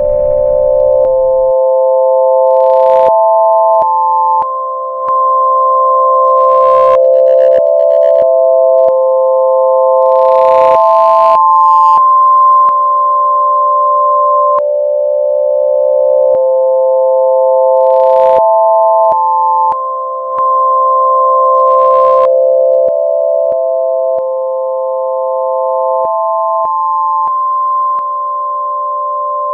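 Electronic sine-wave tones, about four pure notes held together in a slow shifting chord, each note changing every few seconds, with short crackles breaking in now and then. A low rumble dies away in the first second or so.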